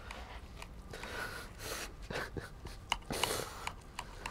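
Knife cutting through the crisp breadcrumb-crusted anchovy tortino on a ceramic plate: a few short rasping cuts, with small clicks as the blade works through the crust.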